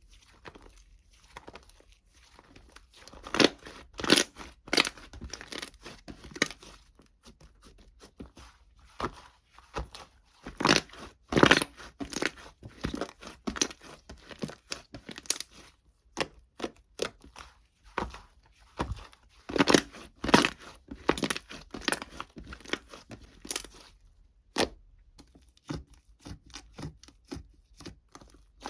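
Irregular crinkling, crunching and tearing noises close to the microphone, in uneven bursts, with louder clusters of strokes about three to five seconds in, around eleven seconds in, and around twenty seconds in.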